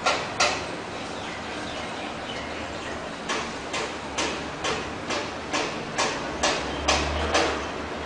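A cockatoo's beak clicking against a wooden spoon as it picks seed from it: two sharp clicks at the start, then a steady run of about two clicks a second from about three seconds in.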